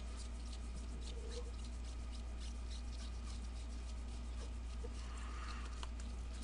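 Faint rustling and light ticking of trading cards and a card pack being handled in gloved hands, over a steady low hum.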